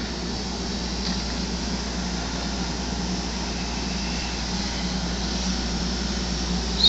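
Solar-powered 10,000 BTU window air conditioner running: a steady, even mechanical hum.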